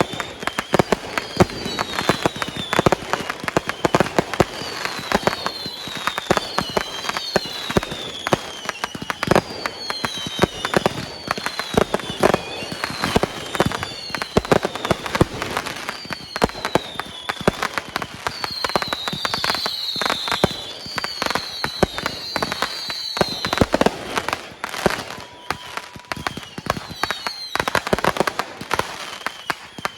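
Fireworks display: a steady barrage of bangs, pops and crackling, with many short whistles that fall in pitch, thickest a little past the middle.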